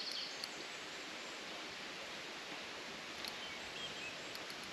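Steady, even hiss of outdoor riverbank ambience with no distinct events: background noise beside a flowing river.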